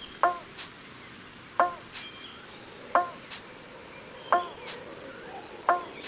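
A sparse percussion loop from a live electronic set: a short pitched, woody knock followed a moment later by a sharp high tick, the pair repeating five times about every 1.4 seconds over a steady high insect hum from a tropical forest recording.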